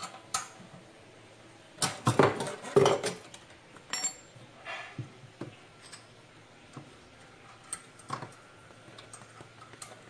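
Metal clinking and clattering of a spanner and loose metal parts being handled inside the base of a twin-tub washing machine: a quick run of clinks about two seconds in, then scattered single clicks and taps.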